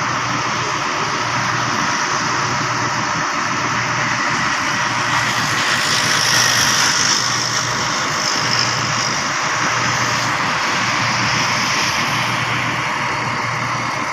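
Schwing 42 m truck-mounted concrete pump running steadily, its engine's hum under a constant mechanical noise, with a higher hiss swelling in the middle.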